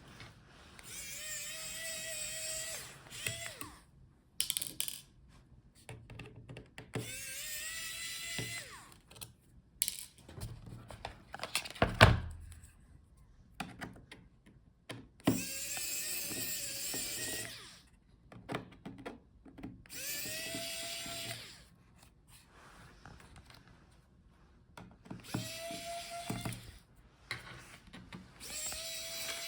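Small electric screwdriver running in about six short bursts, its motor whining up to a steady pitch each time as laptop bottom-case screws are backed out. A single sharp knock comes about twelve seconds in.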